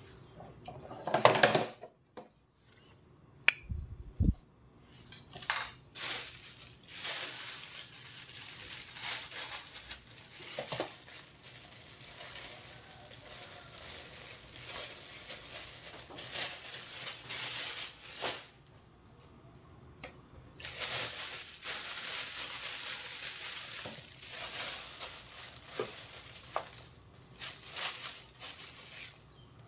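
A kitchen knife clatters against a plastic container about a second in, followed by a few light knocks. Then a plastic bag rustles and crinkles at length as ingredients are handled, pausing briefly near two-thirds of the way through.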